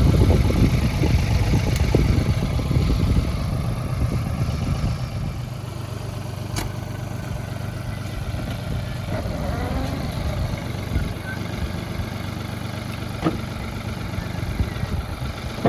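An engine running steadily at idle, heavier and rougher for the first few seconds, then settling into a steady low hum. A couple of sharp knocks come partway through.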